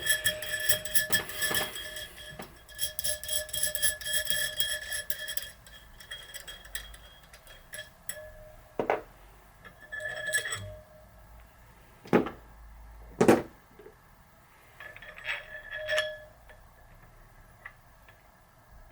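Metal clinking and ticking as a nut is turned on a home-made bearing press, drawing a new sealed bearing down into a bicycle freehub body. There are quick, closely spaced ticks for the first five seconds or so, then about half a dozen separate ringing clinks.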